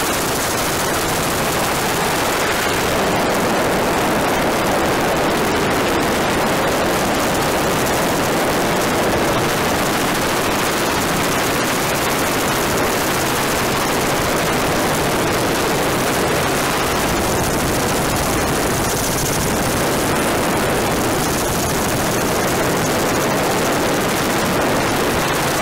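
Helicopter rotor and turbine noise heard from aboard, mixed with wind rushing over the microphone: a loud, steady, dense rush that does not let up.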